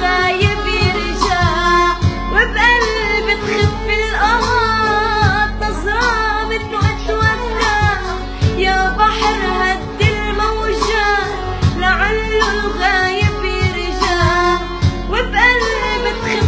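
A song: a high singing voice carries a melody full of slides and ornaments over a steady drum beat and a held low tone.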